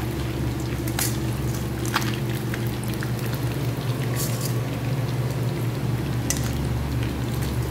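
Fish sizzling in hot frying oil, with a few sharp clicks of metal tongs as the fried pieces are lifted out into a wire strainer. A steady low hum runs underneath.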